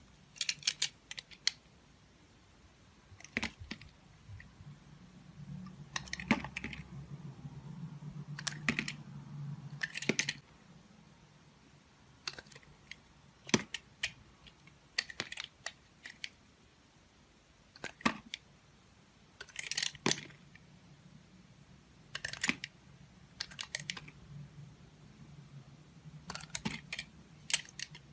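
A blade cutting into dry bar soap, making crisp clicking cuts that come in short clusters every second or two, with brief pauses between strokes.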